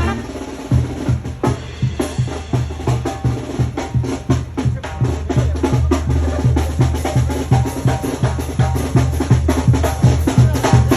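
Latin dance music: the brass drops out at the start and drums and percussion carry a fast, steady beat.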